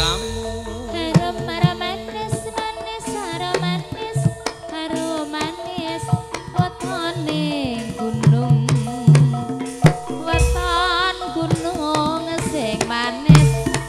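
Javanese gamelan (karawitan) music accompanying tayub dance: kendang hand drums beat a quick rhythm under sustained metallic notes, with a singer's wavering voice over the top.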